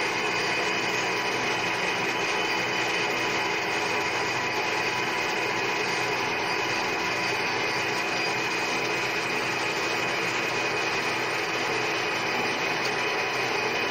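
Centre lathe running steadily, its spindle and gearing giving a constant whine with several held tones, as the tool cuts a groove into a small metal workpiece, taking it down to 15 mm diameter.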